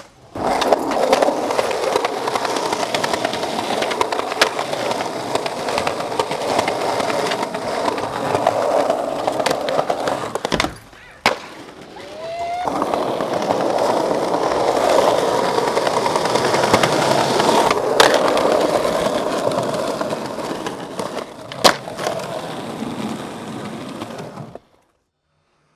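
Skateboard wheels rolling on concrete, with a few sharp clacks of the board. There is a short break a little after ten seconds, then more rolling with two clacks, and the sound cuts off shortly before the end.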